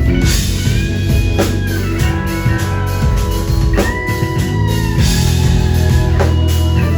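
Live rock band playing, with guitar over a drum kit and a steady, dense low end.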